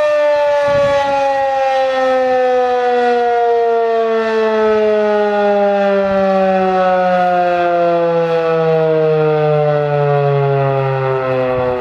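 Federal Signal 2001-DC outdoor warning siren winding down at the end of its test, its tone falling slowly and evenly.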